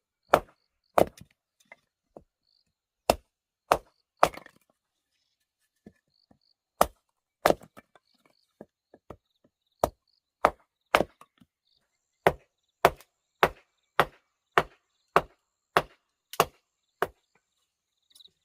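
Wood being chopped with sharp, single blows. The blows are uneven at first, with a pause near the middle, then fall into a steady run of nearly two a second in the second half.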